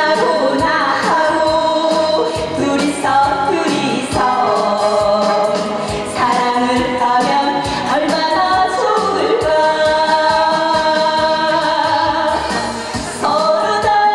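A woman singing a Korean trot song into a handheld microphone through a PA, over instrumental accompaniment with a steady beat. She holds some long notes.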